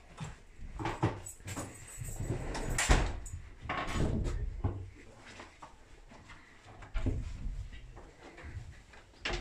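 Doors in a railway compartment coach being handled, opened and shut: a series of knocks and clatters, the loudest about three seconds in and another just before the end.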